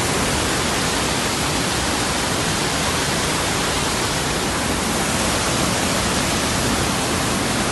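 River waterfall, water rushing steadily and loudly.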